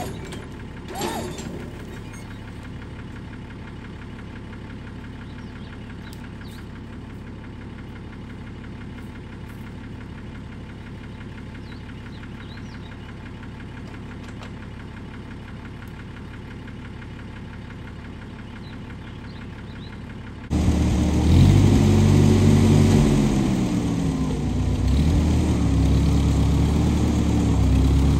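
A steady low engine hum in the background; about two-thirds of the way through, the Ford 8N tractor's four-cylinder gas engine starts abruptly and runs much louder, its speed rising and falling as it is throttled.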